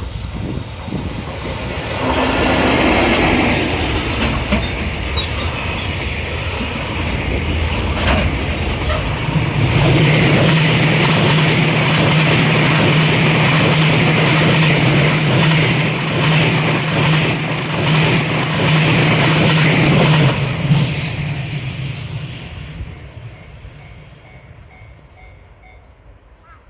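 Freight train hauled by an EF65 electric locomotive passing by, its wheels running on the rails. The noise builds about two seconds in, stays loud for some twenty seconds as the wagons go by, then fades away near the end.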